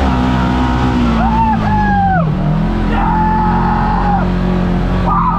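Side-by-side UTV engine running under load on a steep hill climb, its revs sagging about two seconds in and then holding steady, with brief shouts over it.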